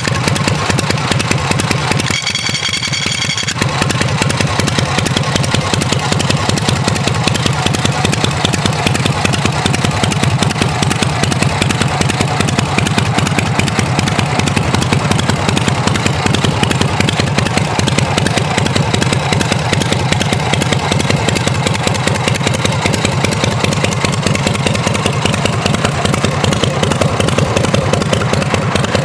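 Harley-Davidson Shovelhead 45° V-twin engine of a chopper running steadily, with a dense even beat. A brief dip with a steady high-pitched tone comes about two seconds in.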